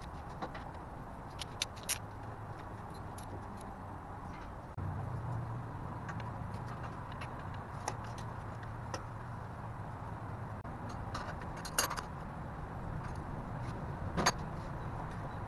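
Scattered light clicks and clinks of a hand tool and fittings being handled on engine parts, over a steady low hum that gets louder about five seconds in.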